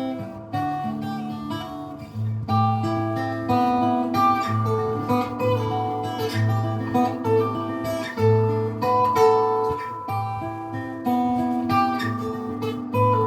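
Acoustic guitar playing an instrumental piece: plucked melody notes over a low bass note that recurs about once a second.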